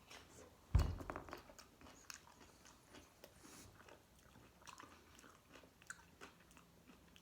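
A bite into a crisp garlic dill pickle: one loud crunch about a second in, then quieter crunchy chewing with small scattered crackles.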